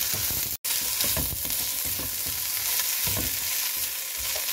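Shredded cabbage, chicken and vegetables sizzling in a little oil in a non-stick pan, stir-fried with a plastic spatula: a steady hiss with irregular soft strokes and scrapes of the spatula through the food.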